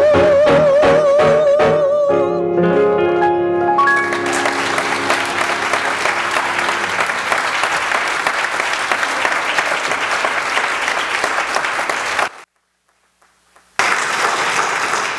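A woman holds a final sung note with vibrato over grand piano chords, and the piano closes with sustained chords. About four seconds in, an audience breaks into applause. Near the end the applause drops out for about a second and a half, then resumes.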